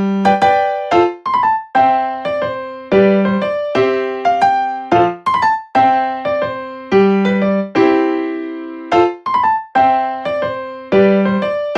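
Background keyboard music: a light melody of struck notes and chords, each ringing and fading before the next.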